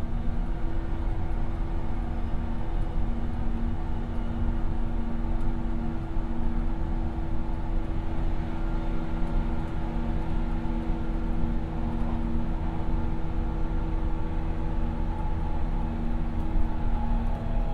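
Interior sound of a JR 117-series electric train running at speed: a steady low rumble from the running gear with a steady hum over it.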